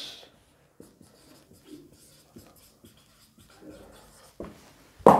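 Marker pen writing on a whiteboard: a run of short, irregular scratchy strokes. A brief burst of a man's voice comes just before the end.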